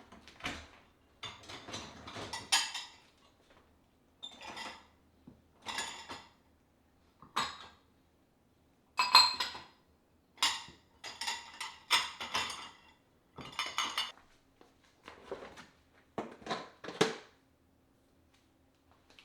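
Dishes and cutlery being handled and set down, a string of separate clinks and clatters, some in quick runs, about one every second or so.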